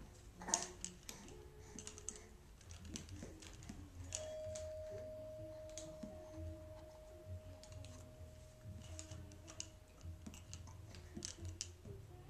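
Plastic link rings and hanging toys on a baby play gym clicking and clattering as a baby grabs and shakes them, in scattered irregular clicks. A steady thin tone sounds from about four seconds in and fades out some six seconds later.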